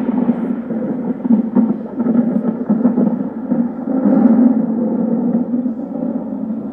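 Sustained low rumbling drone of an outro sound effect, easing off near the end.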